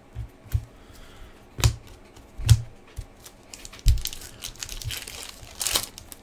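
A few sharp knocks as a stack of trading cards is handled and set down, the loudest about halfway through. Near the end comes the crinkle of a hockey card pack's wrapper being torn open.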